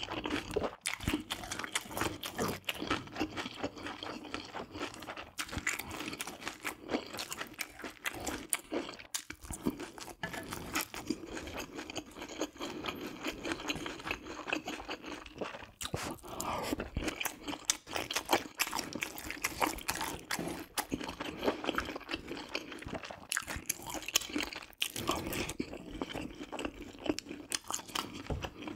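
Close-miked chewing and mouth sounds of a person eating spicy stir-fried baby octopus and beef large intestine: a rapid, uneven run of small wet clicks and smacks.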